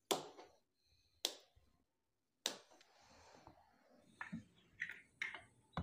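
Sharp snips of side-cutting pliers trimming plastic cable ties, three clicks about a second and a quarter apart, followed near the end by several lighter plastic clicks and taps.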